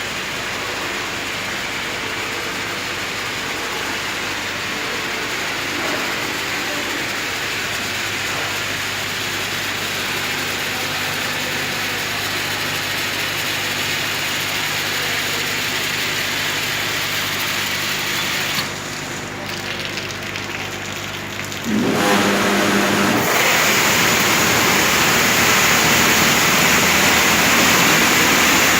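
Automatic heavy-vehicle wash running: steady motor hum under a wash of water spray. About two-thirds through, the spray stops briefly, a machine hum comes up, and then a louder, hissing spray starts.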